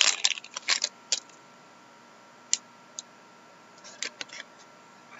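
Trading cards being handled and flipped through: a quick run of light clicks and taps in the first second, single clicks near the middle, and a short cluster of taps about four seconds in.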